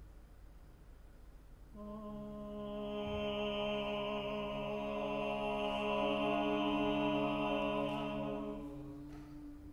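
Contemporary chamber ensemble holding a sustained chord of several steady notes that enter together about two seconds in, swell, and fade out near the end, leaving one low note sounding.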